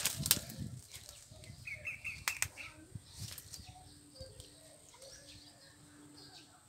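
Rustling of waterside plants and twigs and small splashes as a hand works in shallow, weed-covered pond water, with sharp clicks or snaps at the start and again about two seconds in.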